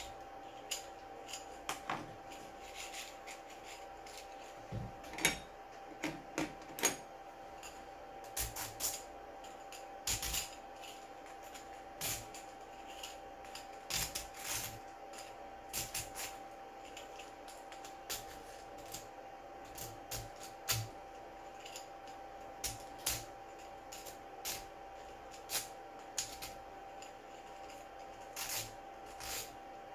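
Hand tools scraping and clicking against a 3D-printed plastic ball-bearing ring as burrs and printing residue are trimmed away: short, irregular scrapes and ticks, several each second at times, over a faint steady hum.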